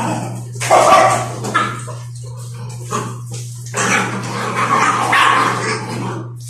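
Dogs barking in two loud bursts, about a second in and again from about four seconds, over a steady low hum.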